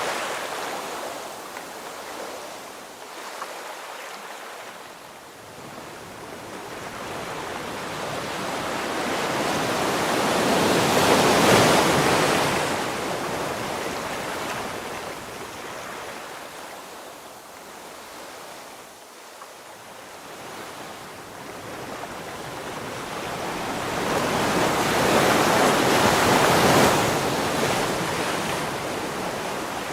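Ocean waves breaking on the shore: a steady wash of surf that swells twice, peaking about 11 seconds in and again about 26 seconds in, and ebbing in between.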